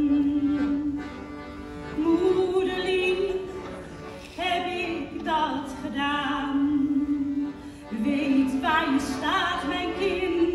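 A woman singing long held notes with vibrato while accompanying herself on a piano accordion.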